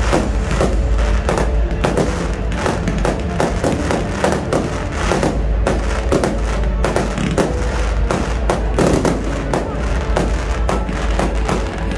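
A fireworks display going off: many bangs and crackles of bursting shells, several a second, over loud music playing throughout.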